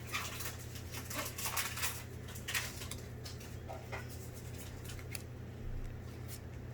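Trading cards and their foil booster-pack wrappers being handled: a run of crinkles and light clicks in the first two and a half seconds, then a few scattered ones, over a steady low hum.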